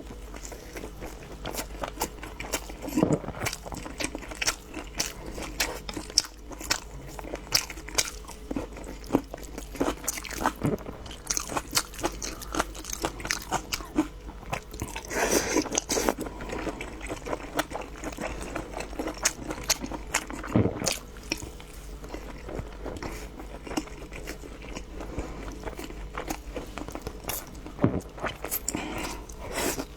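A person biting and chewing food, with frequent short crisp clicks and mouth smacks and a louder crunchy stretch about halfway through.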